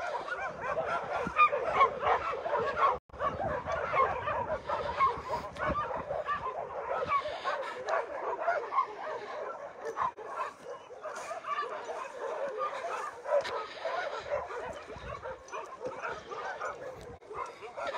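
Many dogs barking and yelping at once in a dense, continuous chorus, with a brief drop-out about three seconds in.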